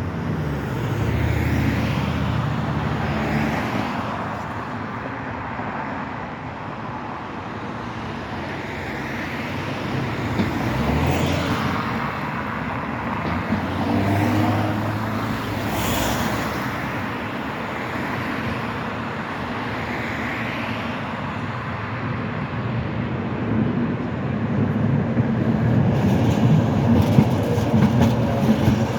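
Street traffic running past on a tram street, with vehicles coming and going. Near the end a tram draws close, its wheels clattering in a quick run of clicks over rail joints.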